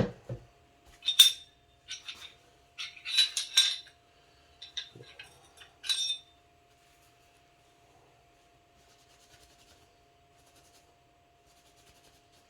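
Small hard objects clinking and clattering as they are handled and moved about on a workbench, in about six short bursts over the first half. The second half is nearly quiet apart from a faint steady hum.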